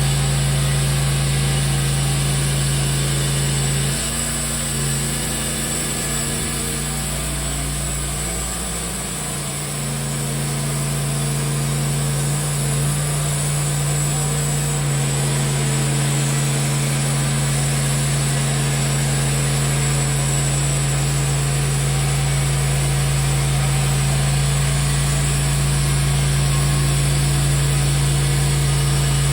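Engine of a Timberking 1400 portable band sawmill running steadily with a constant low hum; the sound dips and wavers briefly from about four to ten seconds in.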